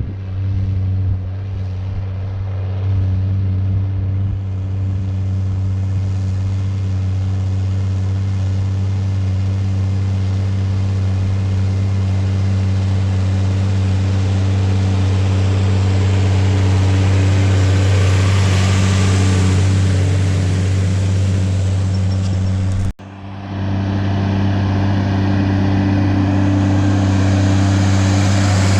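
Tractor engine running at a steady pitch while pulling a plough: a constant low drone with a rushing noise that swells about two-thirds of the way through. The sound breaks off for a moment near the end, then the same engine drone carries on.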